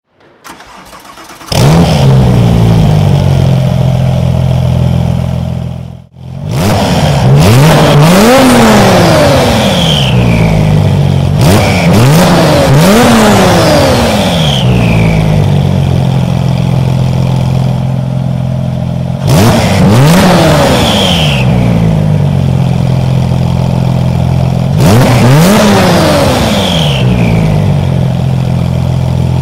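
Porsche 911 Turbo S twin-turbo 3.8 flat-six idling and being revved several times, each rev rising and falling back to idle, with a falling high whistle after the revs. The engine sound comes in loudly about a second and a half in and briefly drops out near six seconds.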